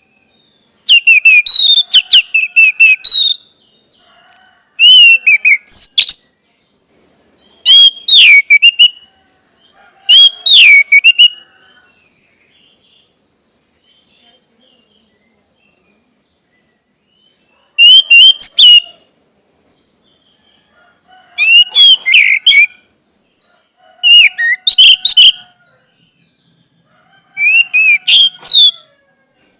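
Orange-headed thrush (anis merah) singing: loud phrases of rapid, sliding whistled notes, each a second or two long, repeated every few seconds with one longer pause in the middle. A faint steady high hiss runs underneath.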